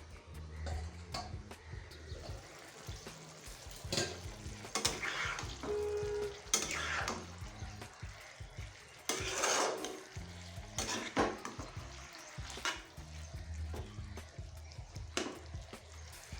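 Pumpkin and Malabar spinach cooking in a metal kadai, with a utensil clinking and scraping against the pan several times; the longest scrape comes a little past halfway. Soft background music runs underneath.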